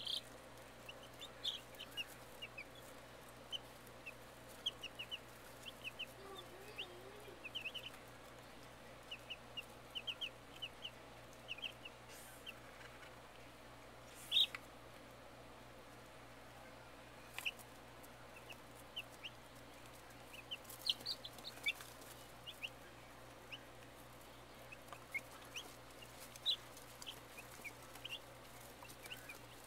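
Baby chicks peeping: many short, high-pitched peeps scattered throughout, often in quick runs of three or four, with one louder peep about halfway through. A faint steady hum runs beneath.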